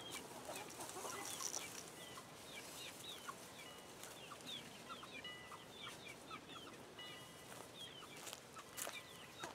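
Chickens making faint, short, high chirping calls, many in a row.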